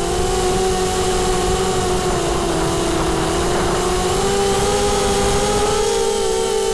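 Motors and propellers of an FPV multirotor drone, recorded close up by its onboard camera: a steady multi-tone whine. The pitch dips about halfway through and rises again as the throttle changes during low flight.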